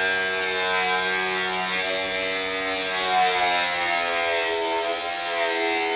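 Small angle grinder cutting through the sheet-metal cover of a distribution board, its motor whine running steadily and wavering slightly in pitch as the disc is pushed along the cut.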